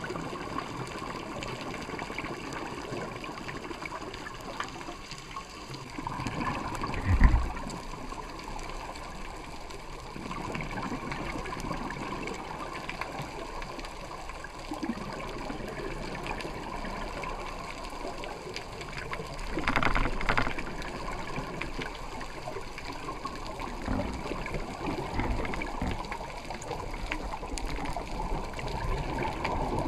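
Underwater sound through a dive camera's housing: a steady wash of water noise, with louder gurgling rushes of a scuba diver's exhaled regulator bubbles, twice plainly and a few times more faintly.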